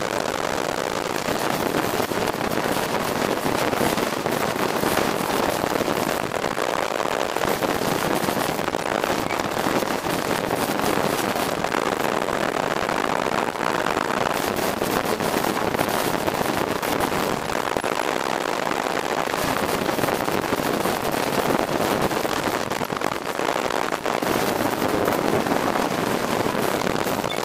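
Street go-kart's small engine and road noise heard from on board the kart while driving, a steady, dense crackling rattle.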